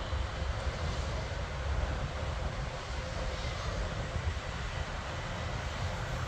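Twin-engine business jet's turbofan engines running at taxi power: a steady rush with a low rumble and a faint, steady whine.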